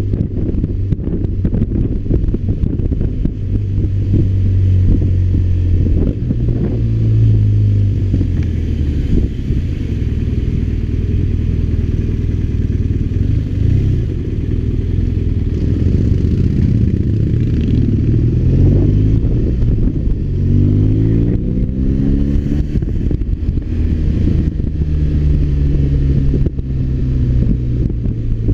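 BMW R1200RT's boxer-twin engine heard from on board the motorcycle while riding. The revs rise and fall with the throttle, with a run of rising revs about twenty seconds in.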